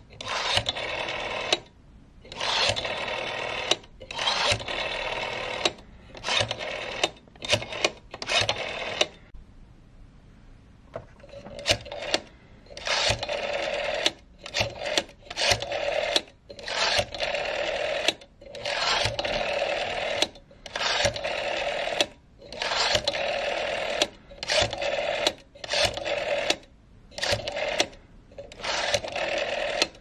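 Rotary telephone dial being pulled round and let go again and again. Each release gives about a second of whirring as the spring carries the dial back and it clicks out the pulse-dial digits, with short pauses between numbers and a longer lull about a third of the way through.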